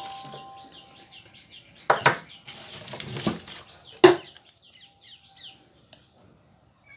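Small birds chirping rapidly, with two sharp knocks about two and four seconds in and a short burst of noise between them.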